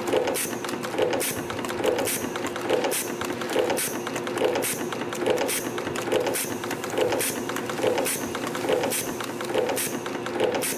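YHM CT-210 CNC micro spring machine running in production, coiling 0.8 mm heating wire: a steady hum with a sharp, hissy snap repeating a little more than once a second, one for each part formed.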